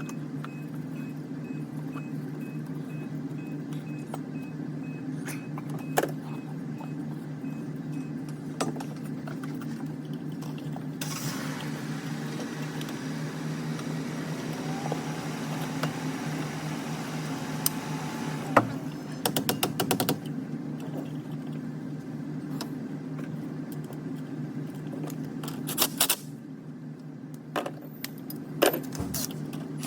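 Hand tools and metal battery parts clicking and clinking over a steady low hum, with quick runs of rattling clicks in the second half.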